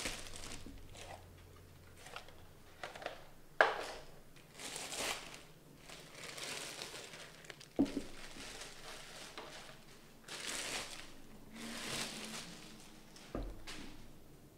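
Thin clear plastic bags crinkling and rustling in bursts as they are pulled off a pair of cowboy boots. Three sharp knocks come as the boots are handled on a stone countertop, the loudest about a third of the way in.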